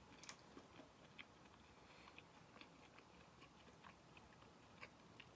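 Faint chewing of a mouthful of fried rice: soft, scattered mouth clicks every half second or so over near silence.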